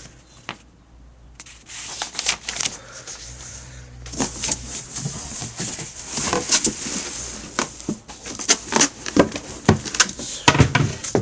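Packing paper and documents crinkling and rustling as they are handled, with many scattered sharp crackles and taps.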